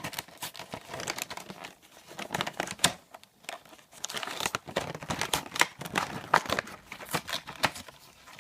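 Plastic and cardboard toy packaging being torn open and crinkled by hand, in irregular rustling bursts with sharp crackles.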